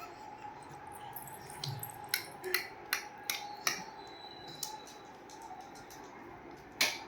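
A baby clicking his tongue with his mouth: sharp single clicks at an uneven pace, about eight over several seconds, over a faint steady hum.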